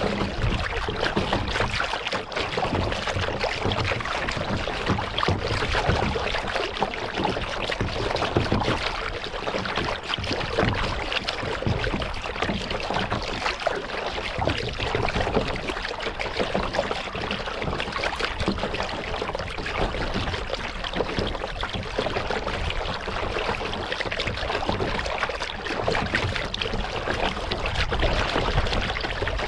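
Paddle water splashing and trickling around a kayak being paddled across a lake, a steady uneven wash of water sound with low rumbles underneath.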